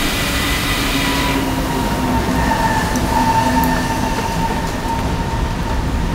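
Misting nozzles of an automatic balcony watering system spraying with a steady hiss that cuts off about a second in, over a continuous rushing noise with a steady whine and a low hum.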